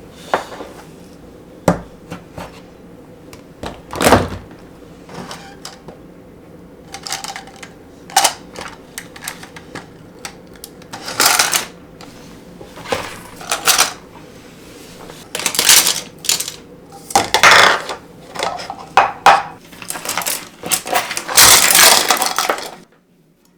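Painting supplies being handled: irregular clinks and knocks of brushes and tools against hard containers such as a jar or palette, with brief swishing sounds, all cutting off suddenly near the end.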